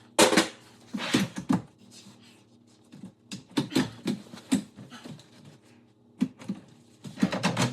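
Irregular clicks, knocks and rubbing of kitchen cabinet hardware as a door's clip-on hinges are pressed loose and the door is worked off.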